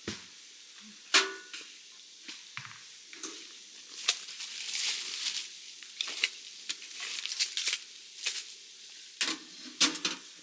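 Scattered sharp clicks and crackles with rustling as gear is handled around a small titanium wood stove, with one loud metallic clink that rings briefly about a second in.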